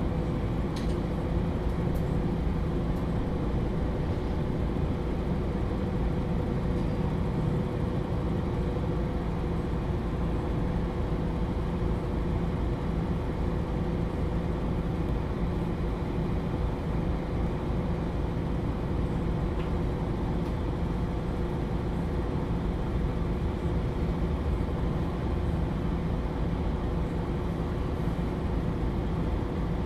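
MAN Lions City A21 NL323 city bus idling steadily while stationary: its rear-mounted six-cylinder diesel runs with a constant low hum.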